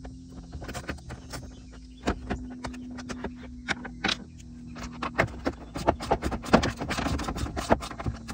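Hand ratchet on an extension loosening the 10 mm bolts that hold a jet ski's ECU, clicking in scattered strokes at first and then in quick runs during the second half. A low steady hum runs underneath.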